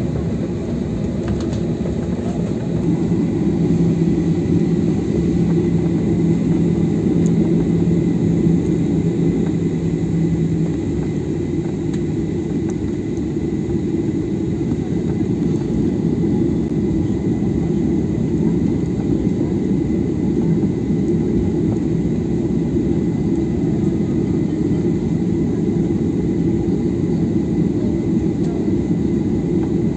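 Cabin noise of a Ryanair Boeing 737 taxiing: a steady low rumble from its jet engines at idle and the airframe rolling along the taxiway. A low, even hum sits under it for several seconds, from shortly after the start until about a third of the way through.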